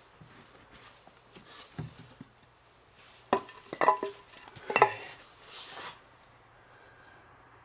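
Metal tools clanking and clinking, a handful of sharp ringing strikes about three to five seconds in, followed by a short rushing scrape.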